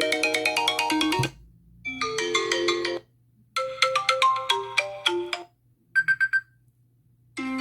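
iPhone XR ringtones previewed one after another: several different short melodic chime tunes, each lasting a second or two and cut off by a brief silence. About six seconds in, a short run of three quick beeps plays before the next tune starts.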